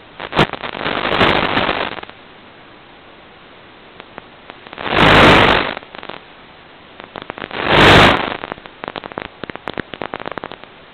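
Crackling static and bursts of hiss on the FPV link's audio channel over a steady faint hiss. There are two loud bursts about five and eight seconds in, then a run of scattered crackles.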